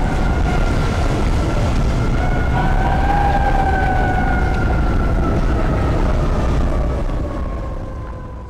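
Emergency vehicle siren wailing, slowly rising and falling in pitch, over the low rumble of city traffic; it fades out near the end.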